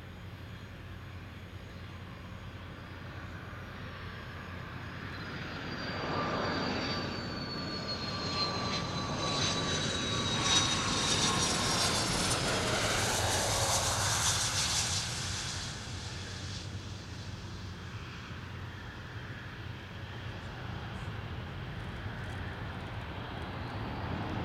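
Gulfstream G450 business jet landing: the whine of its two Rolls-Royce Tay turbofans grows as it comes in and is loudest about ten to fifteen seconds in, its pitch falling as it passes close by. It then settles to a steady, quieter rumble as the jet rolls away down the runway.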